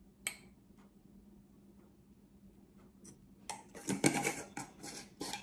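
A spoon clicks once against a glass mug, then a lid is screwed back onto a glass jar of orzo powder with a short run of clattering and scraping about three and a half seconds in.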